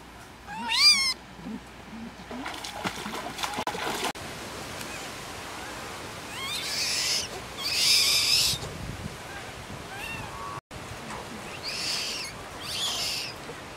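High-pitched calls of a yellow baby monkey: a quick run of falling squeaks about a second in, then harsh screeching cries twice in the middle and twice more near the end, over a steady background hiss.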